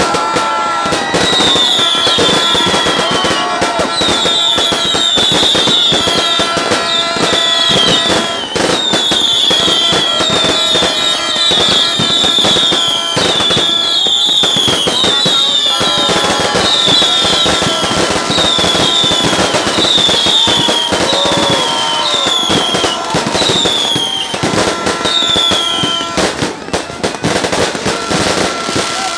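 Fireworks display crackling and popping densely and without let-up, with a run of short high whistles falling in pitch, one after another, from about a second in until near the end.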